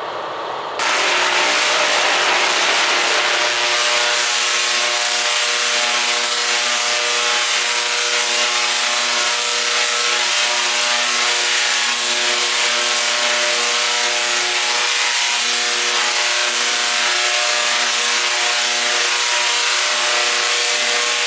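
A 6-inch Tesla coil firing: its sparks make a loud, harsh buzz over a steady droning pitch. It starts abruptly about a second in and keeps going evenly for about twenty seconds.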